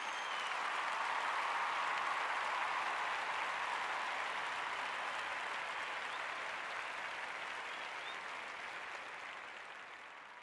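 Crowd applause and cheering that swells in, holds, and slowly fades away near the end.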